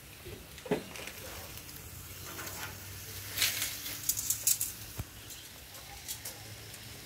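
Bacon sizzling on a barbecue, a steady hiss with crackles and spitting pops that bunch together about three and a half to four and a half seconds in.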